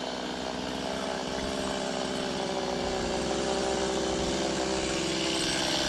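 Two-stroke chainsaw engine running at steady high revs, held without a break and slowly growing a little louder.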